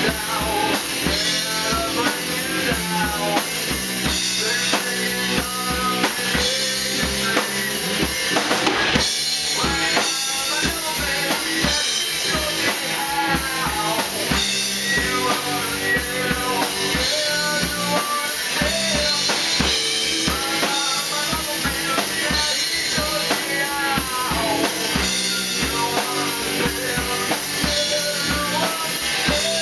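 Rock band playing live: a Yamaha drum kit keeping a steady beat with bass drum and snare, electric guitars and bass guitar through amplifiers, and a man singing into a microphone over them.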